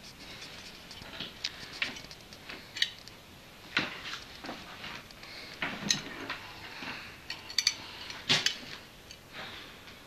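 Irregular light clicks, knocks and rustling of handling and movement in a small room, with the sharpest clicks about four, six and eight seconds in.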